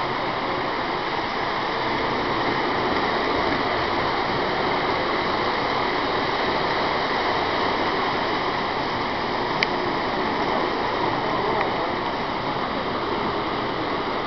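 Steady rushing ambience of a model train display hall, with trains running on the layout, and one sharp click about ten seconds in.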